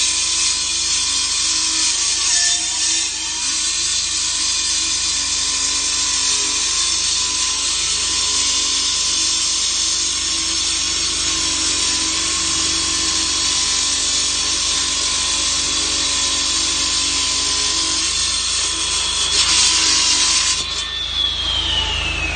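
Dr Bender high-frequency electric saw cutting a 50 MPa concrete panel with quartz and river-pebble aggregate: a steady high whine over the grinding hiss of the cut, the pitch dipping briefly under load a couple of seconds in. Near the end the cutting stops and the motor winds down in a falling whine.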